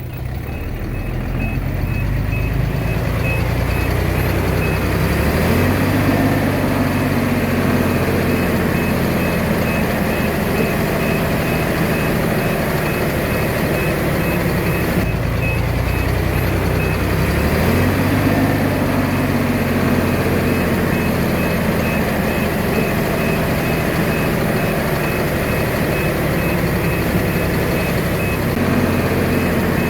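Komatsu D21A bulldozer's diesel engine working under load, its speed rising and falling twice, with a backup alarm beeping steadily at about two beeps a second.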